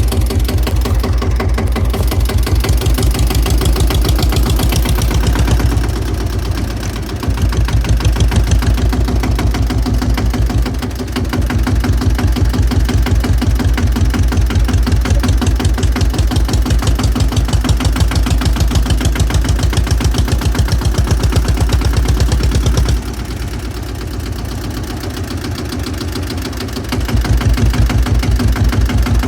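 1953 Fendt F12 HL tractor's single-cylinder diesel engine running with a steady, even rhythmic chugging. It drops quieter briefly about six and eleven seconds in, and again for a few seconds from about 23 seconds in.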